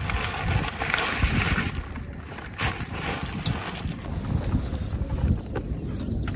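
Wind buffeting the microphone: an unsteady, gusting rumble with a hiss above it and a few faint clicks.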